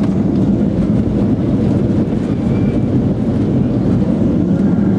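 Steady, loud cabin rumble of a Boeing 737-800 on landing, heard from a window seat: its CFM56-7 engines and the airframe and wheels on the runway making a dense low roar.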